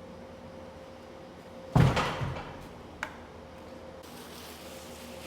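A loud thud about two seconds in that dies away over half a second, then a sharp click about a second later, over a steady low hum.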